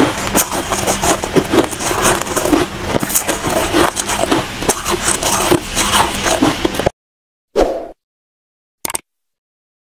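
Soft shaved ice being scooped with a plastic spoon and crunched, a dense crackle of many small crunches and scrapes close to the microphone. It cuts off abruptly about seven seconds in, followed by a brief swoosh and a click.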